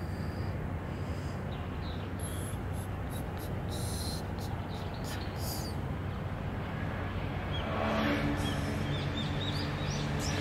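Outdoor ambience: a steady background hiss with a few short high hissing bursts in the first half. Small birds chirp repeatedly in quick short calls through the last few seconds, and a low steady hum joins in at the same time.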